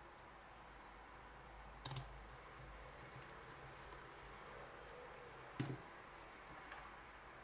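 Two sharp clicks, about two seconds and five and a half seconds in, with a few fainter ticks between, from small parts or tools being handled on a workbench, over a low steady hum.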